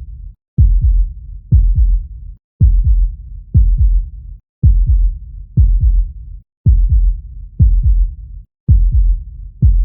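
Heartbeat sound, a steady low lub-dub: each beat a pair of close thumps, about one beat a second.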